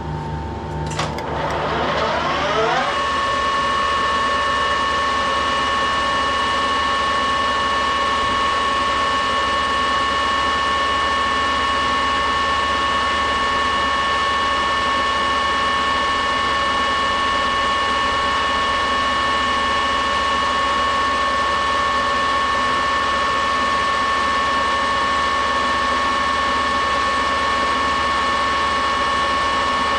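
Metal lathe starting up, its tones rising over the first three seconds or so as it gets up to speed, then running steadily with a constant gear whine.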